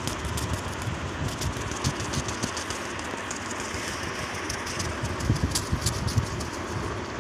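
Baby Alexandrine parakeet flapping its wings: a run of quick, soft feather flutters, coming and going, over a steady background rumble.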